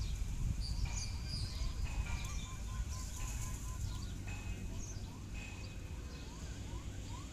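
Birds chirping and calling, with short high notes, a quick trill about two seconds in and a run of short rising calls in the second half, over a steady low rumble.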